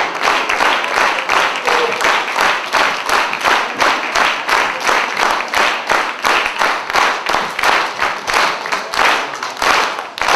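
Audience of children and adults clapping in unison, a steady rhythmic beat of about three claps a second.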